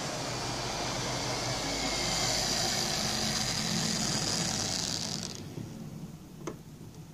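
Lima OO-gauge Class 47 model locomotive running along the track, its electric motor whirring and its wheels rumbling on the rails. About five seconds in the whirr cuts off as the model comes to a stop, followed by a single sharp click.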